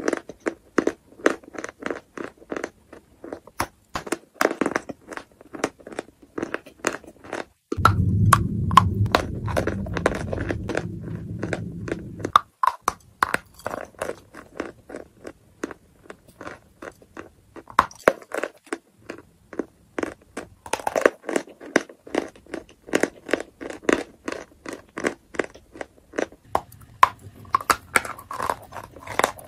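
Lumps of chalk being bitten and chewed right at the microphone: a steady run of dry, sharp crunches and crackles. From about eight seconds in to about twelve, a low rumble runs under the crunching.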